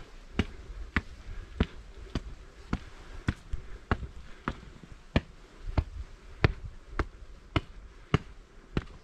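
A hiker's footsteps striking hard ground on a mountain trail, in a steady walking rhythm of a little under two sharp steps a second.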